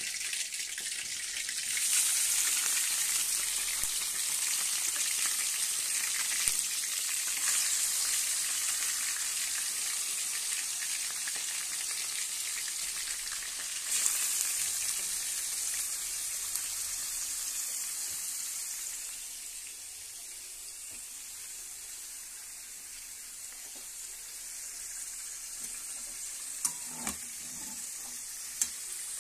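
Small boneless chicken pieces sizzling in hot oil in a steel pan as they are dropped in by hand. The sizzle swells about two, eight and fourteen seconds in as more pieces go in, then settles to a softer, steady fry after about nineteen seconds. A few sharp clicks come near the end.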